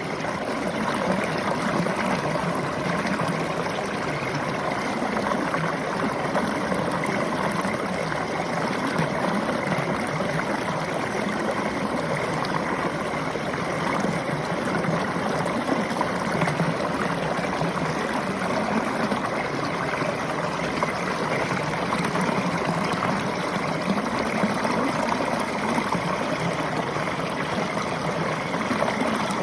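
River water flowing and splashing over stones: a steady, even rush.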